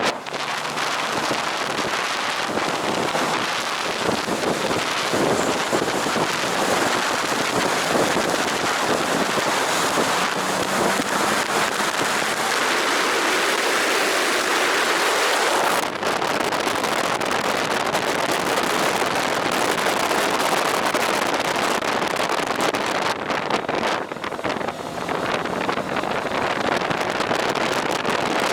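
Wind rushing hard over the microphone of a moving motorcycle, a steady loud roar, with the engine's low note faintly under it. The rush eases for a moment about halfway through and again near the end.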